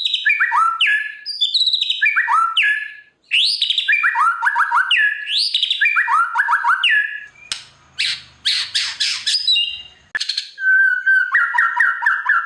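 White-rumped shama singing: clear whistled phrases that fall in pitch, repeated about every second and a half, then a stretch of harsher rasping notes about two-thirds of the way through, and a fast trill near the end.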